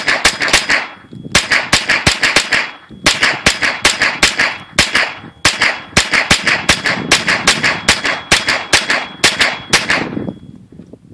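HK MP5 .22 LR semi-automatic rimfire rifle fired rapidly, several shots a second, in strings broken by brief pauses about 1, 3 and 5.5 seconds in. The firing stops about 10 seconds in.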